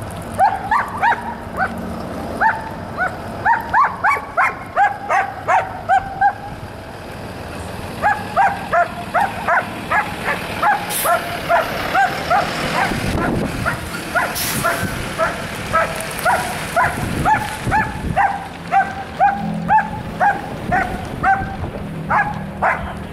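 A dog barking repeatedly and excitedly, about two short barks a second, with a pause of nearly two seconds about six seconds in. A vehicle passes midway under the barking.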